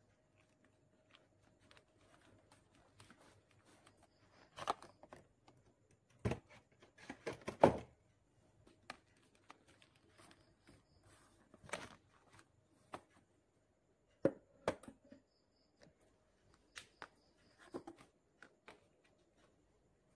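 Paper-covered cardboard boxes being handled and pressed onto a wall to stick them in place: scattered rustles, taps and knocks, loudest about six to eight seconds in.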